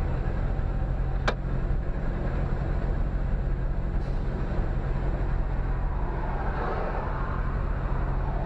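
Engine idling steadily, heard from inside the stationary vehicle, with a single sharp click about a second in. Near the end a rush of traffic noise swells briefly over the hum.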